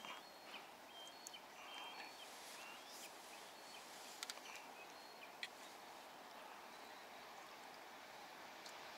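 Near silence: a faint steady outdoor hiss, with a few faint high chirps in the first two seconds and a few sharp clicks around four to five seconds in.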